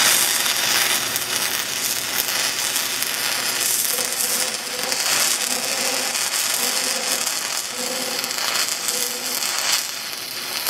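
Stick (shielded metal arc) welding arc burning steadily with a continuous crackle as a root bead is run uphill inside the bevel of a pipe joint.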